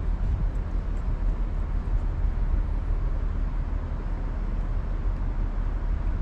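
Steady low outdoor rumble, deep and unbroken, with no distinct event standing out.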